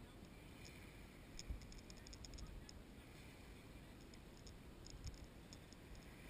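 Near silence, with faint, rapid, high-pitched clicking in two runs, about a second and a half in and again from about four to six seconds in, and two soft low bumps.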